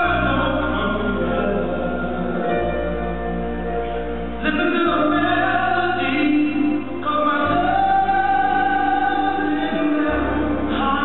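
Music with singing in long held notes, over low sustained chords that change about every two and a half seconds.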